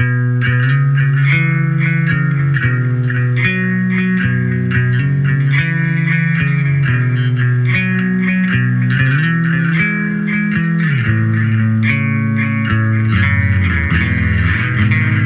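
Electric guitar played through an echo/delay pedal with a compressor circuit. It plays a riff of low notes stepping up and down, with many quick repeated higher notes above them, starting abruptly.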